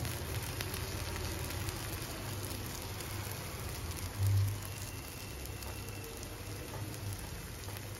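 Oats chilla batter sizzling in hot desi ghee in a nonstick pan while it is spread out with a steel ladle: a steady frying hiss over a low hum, with a brief low thump about four seconds in.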